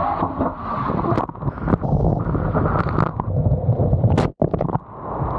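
Water rushing and splashing along a water slide under a rider on a mat, with wind buffeting the microphone. The sound drops out briefly about four seconds in.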